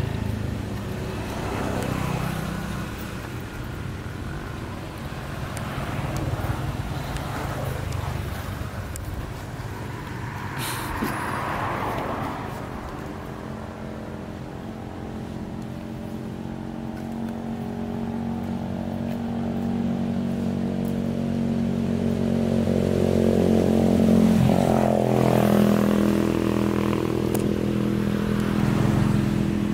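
A motor engine running steadily nearby, growing louder in the second half.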